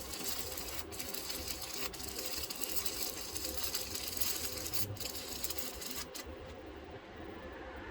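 Electric arc welding: a steady crackling sizzle with a few brief breaks in the arc, which stops about six seconds in.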